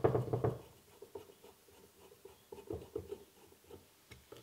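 Faint scratching and light ticks of a screw being worked out of a stripped thread in the lathe's aluminium casting, the thread stripped out into curly swarf.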